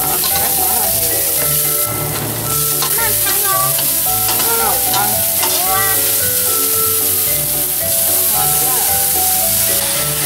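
Green peas, diced carrot and ham sizzling in a hot wok, stirred and scraped with a metal spatula. Background music plays over it.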